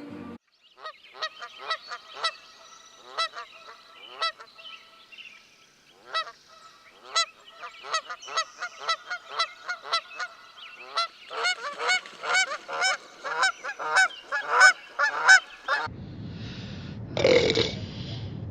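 Many short, repeated bird calls, spaced out at first and growing denser and louder about two-thirds of the way in. Near the end they give way to a rumbling noise.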